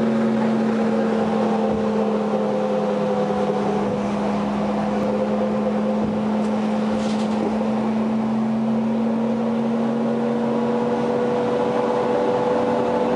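City bus cruising steadily, heard from inside: a constant drone and whine from the engine and drivetrain over road noise.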